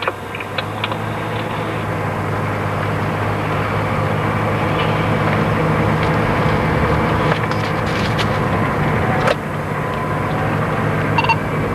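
Vehicle engine running steadily with road noise while driving, heard from inside the cab, with a few faint ticks in the second half.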